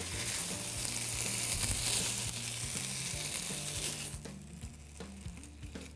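Pieces of lamb leg sizzling in a hot pot as they brown in their own fat, turned and lifted out with tongs. The sizzle drops away about four seconds in, leaving soft background music.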